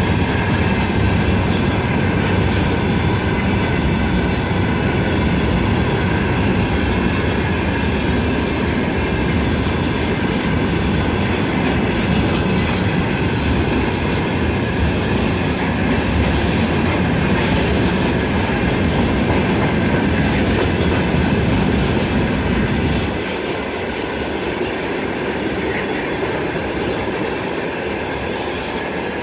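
Loaded freight tank wagons rolling past, their wheels clattering over the rail joints with a steady rumble and thin high ringing tones above it. The low rumble drops away suddenly near the end.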